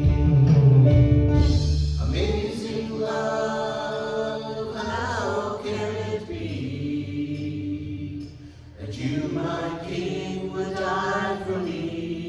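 Worship band and singers performing a contemporary worship song, with sustained chords and sung lines. The low bass stops about two seconds in.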